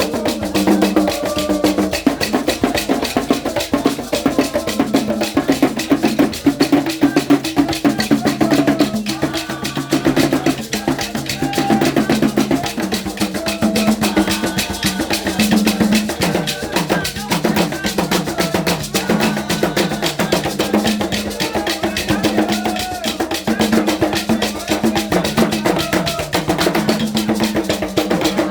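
Women's voices singing a Dida funeral lament over fast, steady drum and percussion beats.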